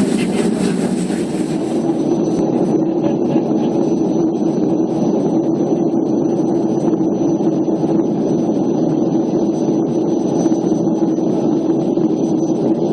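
Steady roar of a Boeing 737's jet engines and rushing air heard from inside the passenger cabin, with a steady hum running through it. About two seconds in, the higher hiss drops away.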